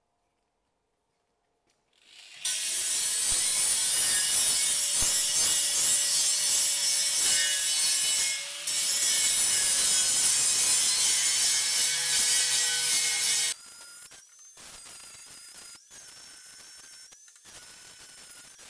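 Angle grinder spinning up about two seconds in and grinding old weld off the inside end of a thin-walled steel conveyor roller tube: a loud, harsh grinding with a brief let-up partway through. About two-thirds of the way in the sound drops sharply to a much quieter steady whine.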